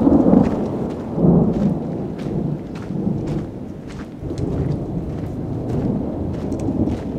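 Loud thunder from a nearby lightning strike. It breaks in suddenly and then rolls on as a low rumble that swells several times.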